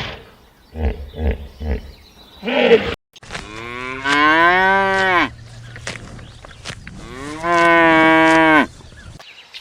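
A cow mooing: two long moos a couple of seconds apart, each dropping in pitch at its end. Before them, a few short animal calls.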